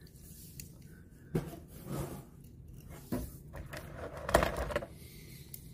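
Die-cast toy cars being handled in a clear plastic packaging tray: several light clicks and plastic scrapes and rustles, the loudest a little over four seconds in.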